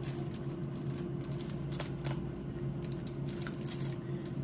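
Knife and fork cutting through cooked pork spare ribs on an aluminium-foil-lined tray: a steady run of small clicks and crinkly scrapes of metal on foil.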